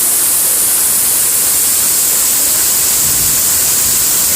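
Heavy thunderstorm rain pouring down, a loud steady hiss.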